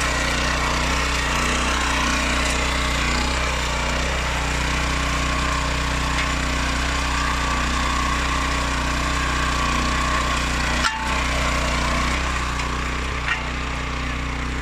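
Oleo-Mac MH 150 RK motor hoe's 700 H petrol engine running at a steady speed, with one brief click about eleven seconds in.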